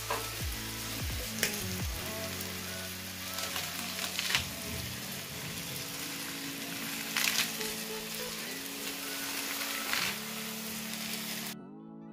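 Fish, potatoes and tomatoes sizzling in an iron kadai, a steady hiss with a few short knocks; the sizzling cuts off abruptly near the end. Soft background music with held notes plays over it.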